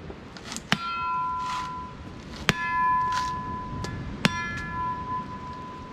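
Back edge of a cane knife striking a husked mature coconut three times to crack the shell open. Each blow is a sharp crack followed by the steel blade ringing at a clear pitch for about a second.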